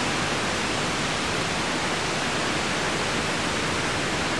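A strong gust of storm wind blowing through the trees, a steady rush of noise with no let-up.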